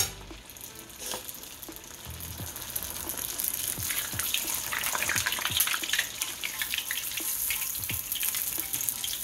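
Egg rolls deep-frying in a pot of hot oil: a sizzling, crackling hiss that is quieter at first and builds to a steady sizzle from about three seconds in, as a fresh roll goes into the oil. A single sharp knock sounds at the very start.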